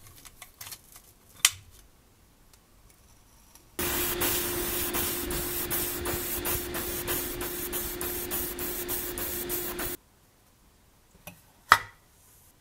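Airbrush spraying paint: a loud, steady hiss with a steady hum under it. It starts suddenly about four seconds in and cuts off about six seconds later. A few sharp clicks come before and after it.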